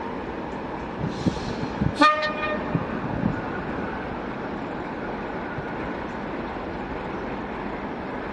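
Railway locomotive horn giving one short, single-pitched toot about two seconds in, over a steady background rumble with a few light knocks around it.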